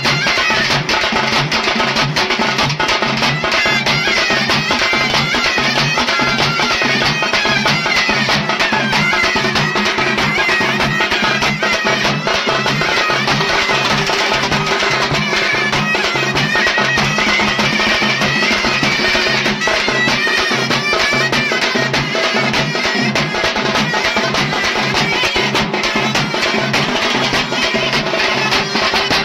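Loud traditional folk music: a reedy wind instrument plays a wavering melody over a steady, regular drum beat.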